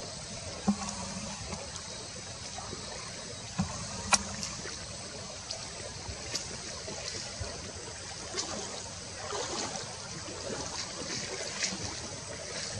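Steady trickling of a stream, with a few sharp clicks or snaps over it.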